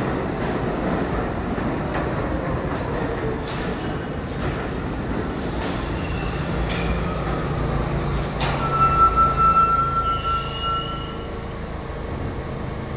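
New York City subway train rumbling into the station and braking to a stop, with a couple of sharp clanks. A high steady squeal starts about two-thirds of the way in and dies away as the train halts.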